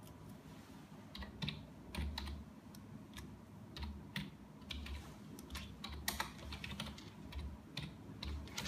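Slow typing on a computer keyboard: a run of separate, irregular keystrokes, about two letters a second, starting about a second in, as a word is typed out one key at a time.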